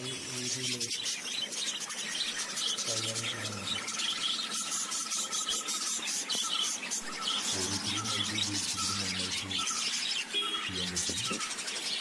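Budgerigars chirping rapidly and continuously, with a wavering warble for a few seconds early on. A low hum-like murmur comes and goes underneath several times.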